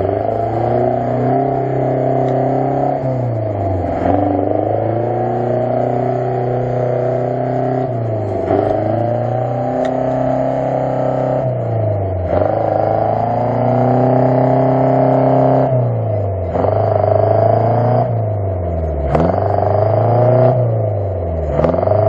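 UAZ-469 off-roader's engine held at high revs while stuck in a muddy rut, the revs dropping and climbing again every few seconds as the driver works to drive it out.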